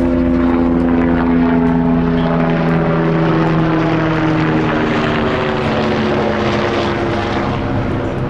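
Loud engine drone of an aircraft passing overhead, its pitch falling slowly as it goes by and easing off near the end.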